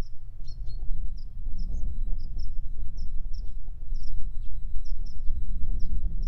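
A small bird calling over and over, short high chirps about three a second, over a loud, uneven low rumble of wind on the microphone.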